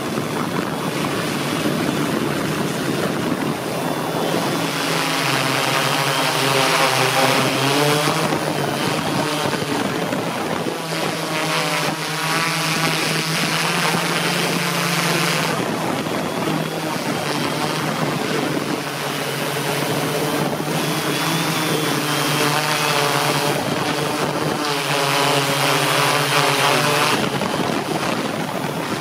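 Align M480L multicopter's electric motors and propellers buzzing in flight, the pitch wavering up and down every few seconds as the throttle changes.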